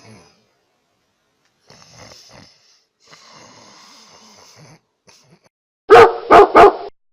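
A sleeping cat snoring softly, a few faint drawn-out breaths. Near the end, three loud barks come in quick succession, like a dog's.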